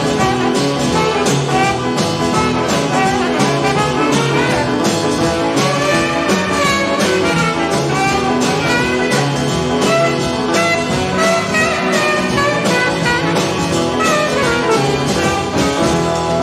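Instrumental jazz music with horns over a steady beat.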